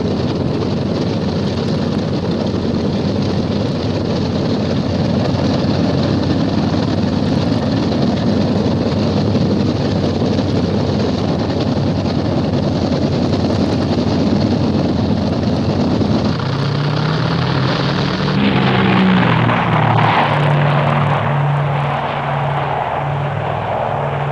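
Twin piston engines of a Grumman Tracker anti-submarine aircraft running at full power for a catapult launch from the carrier deck. About 16 seconds in, the dense engine and propeller noise gives way abruptly to a steadier low droning hum.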